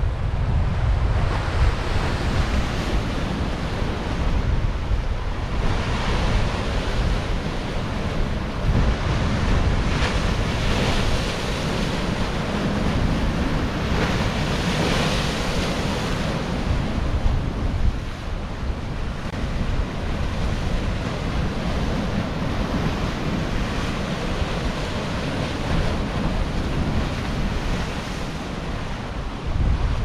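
Baltic Sea surf breaking on shore rocks and wooden groyne posts in swelling, hissing surges, loudest around the middle. Strong wind buffets the microphone with a constant low rumble.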